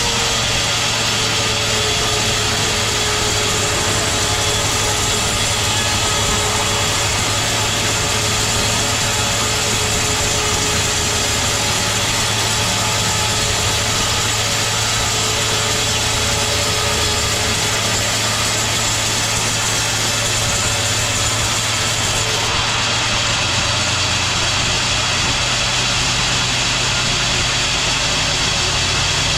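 Sawmill machinery running steadily: a constant low hum with a faint steady whine above it, sawing teak wood.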